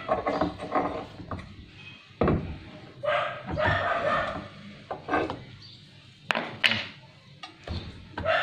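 A few sharp knocks as the cutter arbor is tapped up into the spindle of a Powerbor PB100E magnetic drill to seat it tight.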